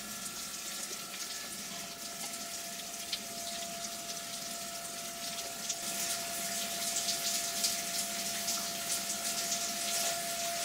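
Flood coolant streaming from a CNC mill's coolant nozzles and splashing into a measuring cup and the machine's enclosure, with the coolant pump running under it as a steady hum. The splashing gets louder and busier about six seconds in.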